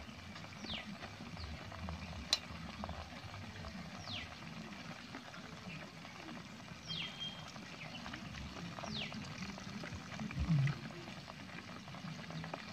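Hot oil sizzling and crackling quietly in an iron kadai as deep-fried chicken leg pieces are lifted out with a wire strainer. A bird gives a short falling whistle about five times, every few seconds, and there is one sharp click about two seconds in.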